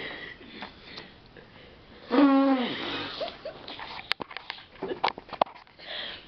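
Sleep snoring with sniffing, nasal breaths: one loud, pitched, wavering snore about two seconds in, then a few short snorts and clicks.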